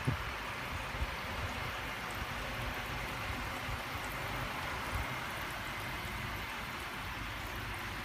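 A steady hiss of running or splashing water, with a few soft low bumps just after the start, about a second in and near five seconds.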